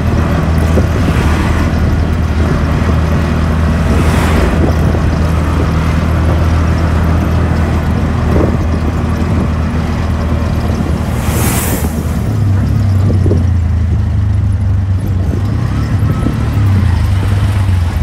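Auto rickshaw (tuk-tuk) engine running steadily under way, heard from inside the open passenger cabin, with a few brief whooshes of passing traffic. About twelve seconds in, the engine note steps up higher.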